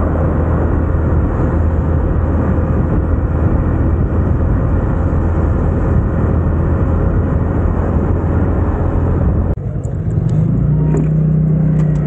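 KTM Duke motorcycle at a steady cruise of about 60 km/h, its engine mixed with heavy wind rush on the rider's camera. About nine and a half seconds in this cuts off abruptly and the same bike's engine is heard idling steadily at a standstill.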